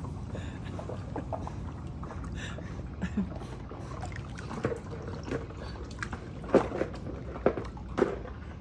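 Dog swimming in a swimming pool, water sloshing and splashing as it paddles. Near the end come a few sharp knocks as it reaches the pool steps and climbs out.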